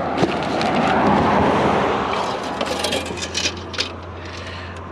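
A vehicle passing by on the road, its tyre and engine noise swelling and fading over about two seconds. It is followed by a few light clicks and rattles as the metal plate and its pole are handled.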